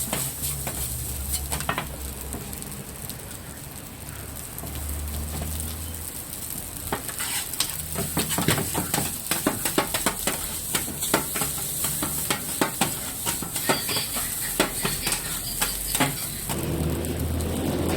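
Fried rice sizzling on a hot iron teppanyaki plate, with a metal spatula clanking and scraping against it. The strikes turn rapid and dense about seven seconds in as the rice is tossed and chopped.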